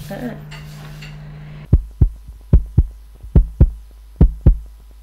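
Heartbeat sound effect: a deep double thump, lub-dub, about 75 beats a minute, with a low hum under it. It starts almost two seconds in, after a short stretch of low room hum.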